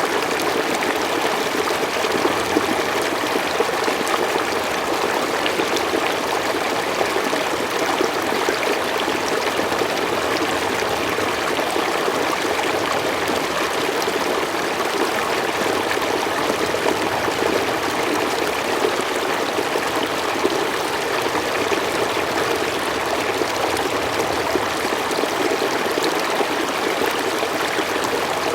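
Forest stream flowing steadily over stones, a continuous babbling and trickling of running water.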